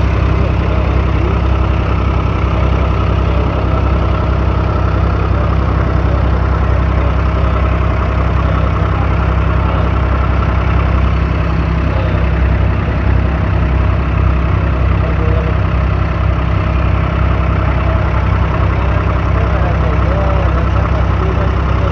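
Diesel engine of a wooden abra water taxi running steadily under way, a low even hum.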